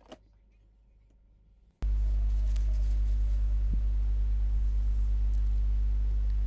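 A loud, steady electrical hum cuts in suddenly about two seconds in: a low 50 Hz buzz with a ladder of overtones above it, typical of mains hum picked up in the recording. Before it the sound is very quiet apart from one short click at the start.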